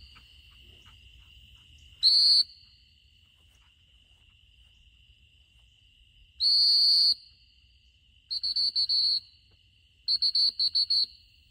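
Retriever-training whistle: a short blast, then a longer blast, then two runs of rapid short pips near the end, blown as commands to a dog running a blind retrieve. A steady high insect chirring runs underneath.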